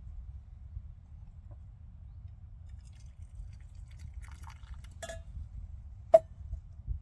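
Light clicks and clinks of small objects being handled, with two sharp clinks near the end, the second louder and briefly ringing, over a low steady rumble.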